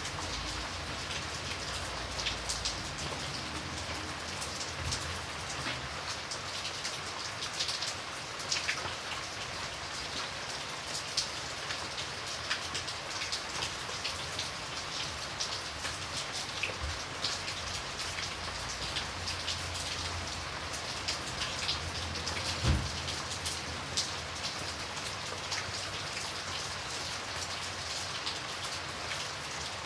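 Light rain falling steadily: an even hiss with many small, sharp drop ticks. One low thud stands out about two-thirds of the way through.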